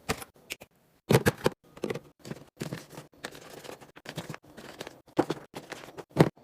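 Food containers and packaging being handled and set into place: an irregular run of sharp clacks and knocks with rustling between them.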